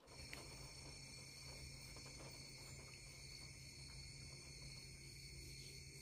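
Faint, steady chorus of night insects such as crickets, several high, unbroken trills layered together, with a low steady hum underneath.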